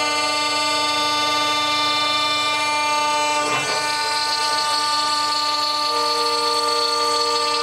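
Chinese 6090 CNC router's spindle running as an 8 mm ball-nose end mill cuts a 3D relief into pine: a steady whine of several fixed tones. A brief rustle comes about three and a half seconds in, and a lower tone joins about six seconds in.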